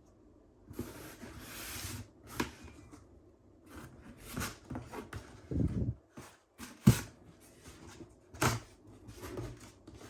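Plastic toy cars being handled: a string of irregular clacks and knocks, the loudest about seven seconds in, with a brief scraping rustle near the start.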